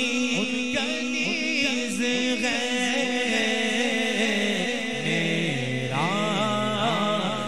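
Male voices singing an Urdu manqabat (devotional song in praise of a Sufi saint): a lead vocalist holds long, ornamented notes, and a second, lower male voice joins in chant-like about five seconds in.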